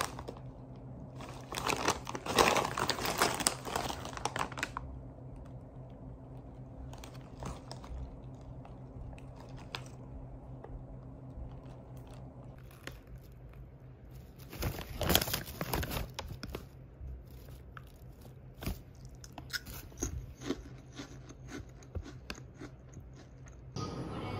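A plastic snack bag of Kkobuk Chip corn-soup-flavoured corn chips crackling loudly as it is handled, twice, with crunchy chips being chewed in between over a steady low hum.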